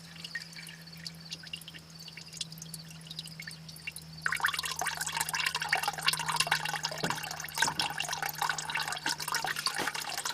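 Diesel fuel being poured through a car engine to flush sludge out of the oil pan. Faint dripping at first, then about four seconds in a steady, splashing pour of liquid starts suddenly.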